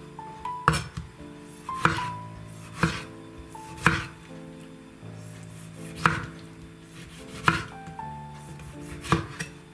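Kitchen knife chopping a tomato on a wooden cutting board: seven sharp knocks of the blade hitting the board, about one a second with a longer pause in the middle. Soft background music with held notes plays underneath.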